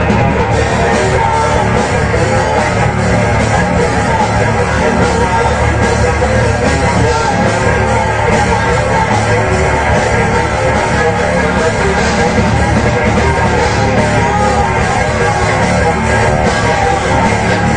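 Heavy metal band playing live, electric guitar and drums, loud and without a break.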